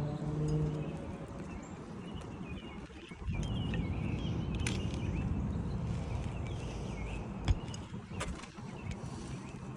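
Songbirds chirping over a steady low rumble, with a few sharp knocks, the loudest about two-thirds of the way in.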